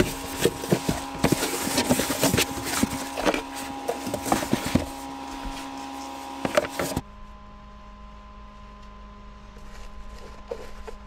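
Cardboard boxes being handled and packed: rapid rustling, scraping and sharp knocks of cardboard for about seven seconds, then a sudden drop to a faint steady hum with a few light clicks.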